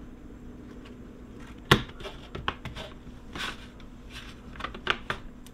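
Sharp clicks and taps of a 3D-printed plastic fan shroud being handled and pressed into place on a Lenovo ThinkCentre M720Q mini PC's metal chassis. There are about half a dozen clicks, and the sharpest comes a little under two seconds in.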